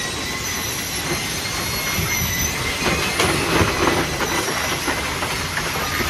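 Refrigerator recycling line's conveyor and separator running, with shredded fridge scraps (foam, plastic and metal) clattering as they pour off a drum onto a moving belt. A steady high squeal runs over the rattle, and the clatter gets busier about halfway through.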